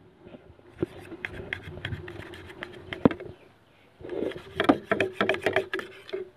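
Table knife cutting boiled pork belly on a plate: repeated clicks and scrapes of the blade against the plate, sparse at first and coming thick and fast in the second half.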